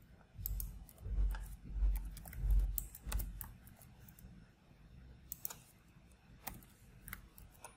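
Computer keyboard typing: scattered key clicks. Low, dull rumbles make up the loudest sound in the first three seconds.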